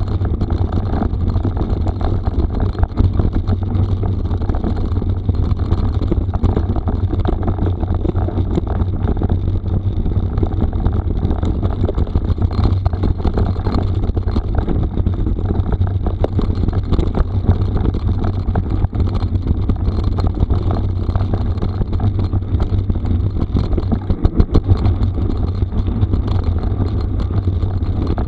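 Mountain bike riding over a rough gravel forest road: a steady low rumble of wind buffeting the microphone, with the crackle of tyres on gravel and rattling from the bike throughout.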